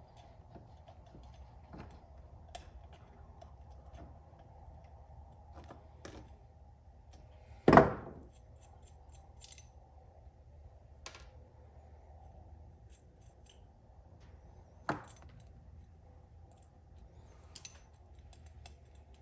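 Hand tools clicking and clinking against metal parts during motorcycle disassembly, with a sharp knock about eight seconds in and a smaller one near fifteen seconds.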